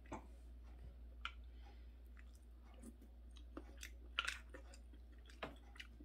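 Quiet chewing of a mouthful of food, with a handful of faint, short clicks scattered through it; the loudest is a quick pair of clicks about four seconds in.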